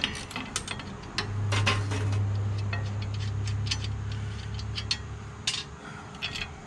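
Scattered sharp metal clicks and clinks as the riding mower's deck-height adjustment lever and bracket are worked by hand. A loud low steady hum comes in about a second in and fades out around five seconds.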